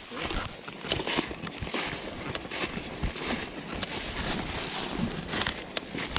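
Footsteps crunching through dry fallen leaves and brushing past twigs, in a quick, irregular run of crackles.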